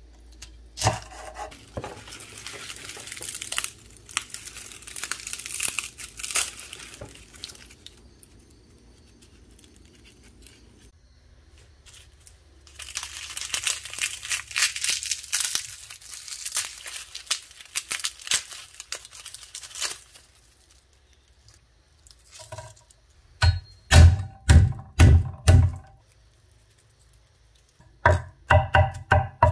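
Dry garlic skins crackling and tearing as cloves are peeled by hand, in two long stretches. Later, a cleaver chops on a wooden cutting board in two quick runs of sharp knocks, the loudest sounds.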